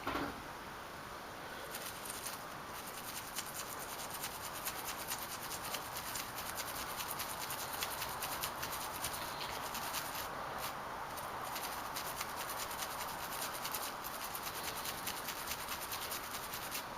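Scrubbing and scraping caked grease out of a motorcycle start-switch housing: a fast, continuous run of scratchy strokes with a couple of short breaks.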